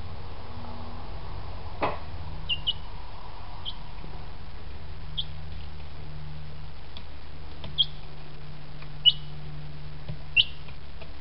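A week-old chick peeping: short, high, falling cheeps every second or two, the loudest near the end. There is a single sharp tap about two seconds in and a steady low hum throughout.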